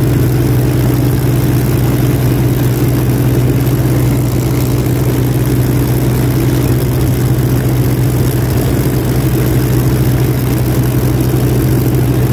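Avro Lancaster's Packard Merlin V12 piston engines running steadily at idle after startup, a loud low even tone.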